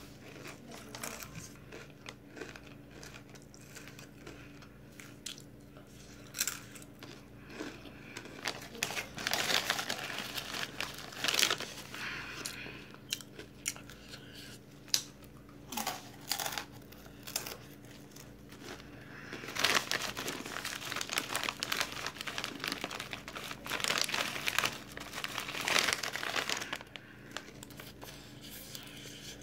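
Shiny plastic Takis chip bag crinkling and rustling as it is handled and reached into. It comes in irregular bouts, the longest about a third of the way in and through much of the second half.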